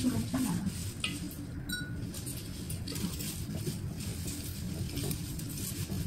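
Light clinks of a glass vase and rustling of flower stems and leaves as hands push a bunch of chrysanthemums down into it, with a sharp knock right at the start.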